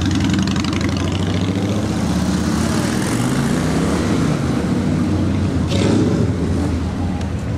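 Cruiser motorcycle engines running as the bikes ride slowly past, with the engine pitch rising about three seconds in.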